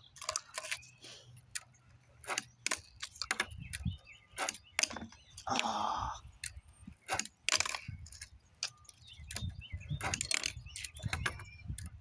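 Fingerboard clacking on a concrete table: the small deck and its wheels strike the surface in quick, sharp clicks that come at irregular intervals. Near the middle there is a louder rush of noise lasting about a second.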